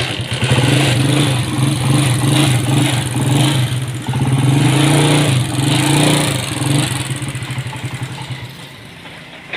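A United CD 70 motorcycle's small single-cylinder four-stroke engine runs after a full engine overhaul. It is revved up and down, then drops back to a quieter, lower run about two thirds of the way through.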